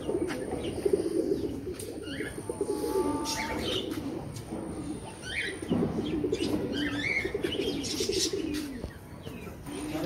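Pigeons cooing continuously in an aviary, with smaller birds giving short sweeping chirps over them several times.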